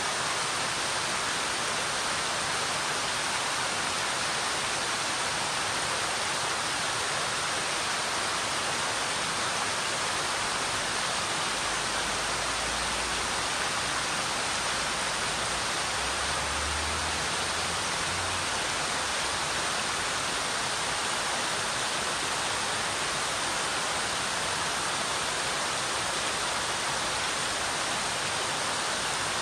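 Mountain stream rushing steadily over rocks, an even wash of water noise. A faint low rumble comes in briefly around the middle.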